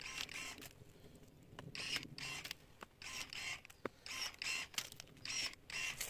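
Cordless electric pruning shears cutting hazelnut shoots: a series of short mechanical whirs, roughly one a second, with a few sharp clicks between them.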